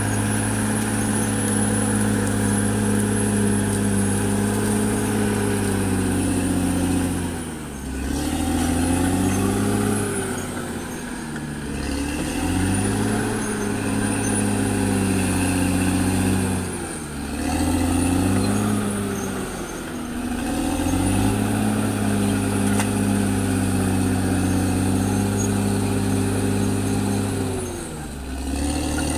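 Caterpillar D6R XL bulldozer's diesel engine working hard, its pitch dipping sharply and climbing back about five times, with a faint high whine rising and falling along with it.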